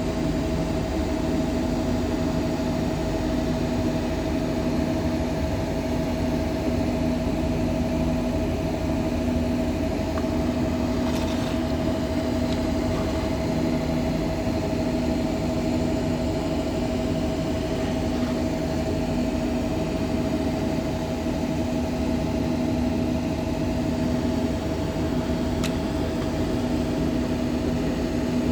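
Textile mill machinery running steadily: a continuous rumble with a constant whine held at one pitch.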